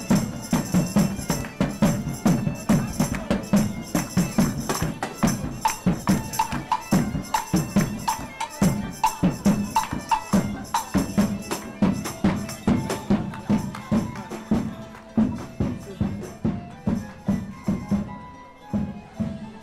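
Medieval-style folk music played live: a steady drum beat with tambourine jingles, joined about a third of the way in by a melody from a wind instrument.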